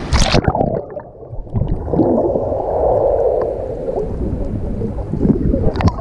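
Shallow surf washing over a GoPro's waterproof housing: a splash as the wave hits, then the sound turns muffled and underwater, a rushing, gurgling swirl of water about two seconds in, with more splashing near the end as the camera breaks the surface.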